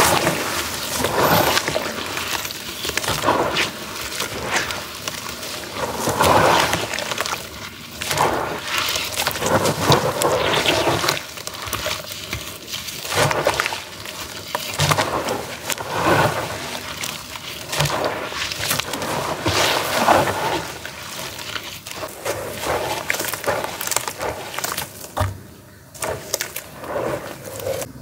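Hands swishing and squeezing crumbled charcoal cake in a basin of water: splashing, sloshing and wet squelching of the gritty slurry, swelling and easing every second or two.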